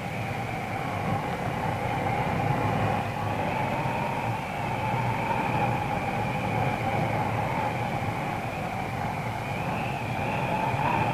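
Wind blowing steadily on an old film soundtrack: a slowly wavering whistle over a low hum.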